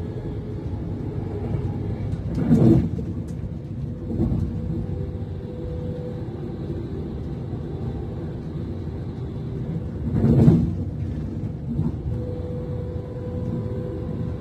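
Interior running noise of a Class 390 Pendolino electric train: a steady low rumble, with two brief louder swells, one about two and a half seconds in and one about ten seconds in.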